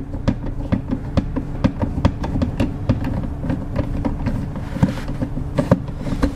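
Background music with a quick clicking percussion beat over a steady low tone.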